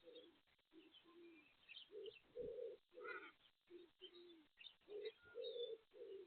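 Doves cooing faintly: an ongoing series of short, low coos, some falling slightly in pitch, with faint small-bird chirps above them.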